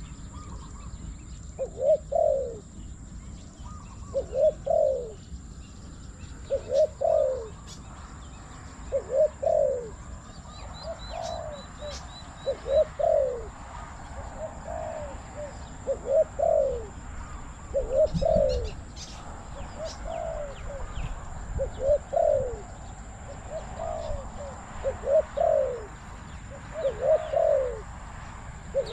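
Spotted doves cooing: a short two- or three-note coo repeated about every two seconds, with a few faint high chirps of small birds.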